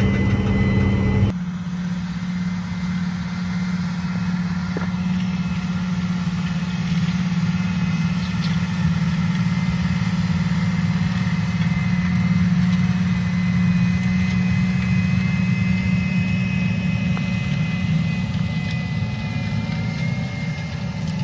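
Tractor engine running steadily, a strong low hum with a thin high whine over it. The sound changes abruptly about a second in, then runs on evenly.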